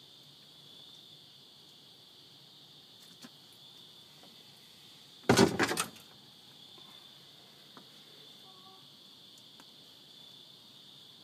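Steady high chirring of crickets. About five seconds in it is broken by a brief, loud clatter of several quick knocks.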